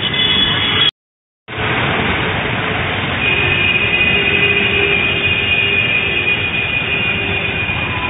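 Road traffic on a wet road: a steady hiss of tyres and engines, with a high steady whine joining about three seconds in. The sound drops out completely for about half a second a second in.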